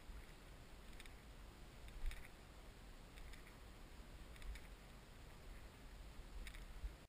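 Faint footsteps swishing and crunching through dry tussock grass, about one step a second, over a low rumble from the body-worn camera's microphone.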